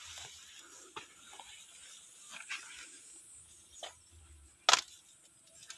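Scattered soft rustles and clicks from someone moving through a vegetable plot, with one sharp click about three-quarters of the way through.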